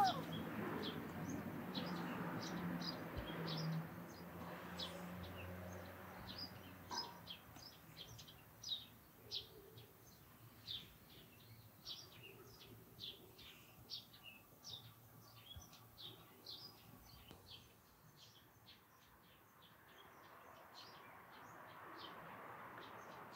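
Small birds chirping: many short, high chirps, two or three a second, thinning out near the end. A brief louder rising sound comes right at the start.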